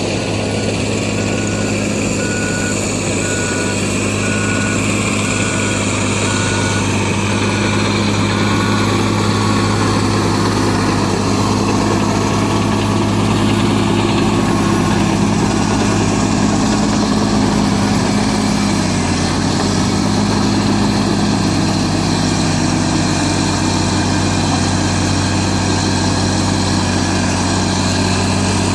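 Crawler bulldozer's diesel engine running steadily, with a backup alarm beeping in an even series for the first several seconds. The engine note drops slightly about two-thirds of the way through.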